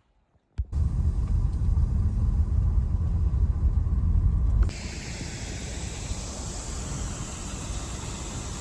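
A loud low rumble starts suddenly and runs for about four seconds, then cuts abruptly to a quieter steady hiss.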